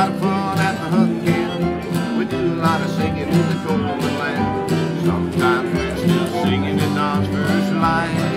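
Acoustic country band playing an instrumental passage without singing: strummed acoustic guitars with a fiddle and a lap-played slide guitar, the lead notes sliding and bending in pitch.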